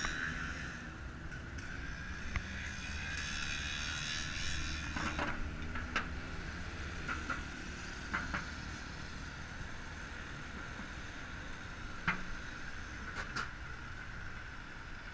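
Bicycle riding noise picked up by a bike-mounted GoPro Hero 3: a steady low rumble of wind and tyres on pavement with a thin steady hum over it. Scattered sharp clicks and rattles come through, a few of them louder around five to eight seconds and again about twelve seconds in.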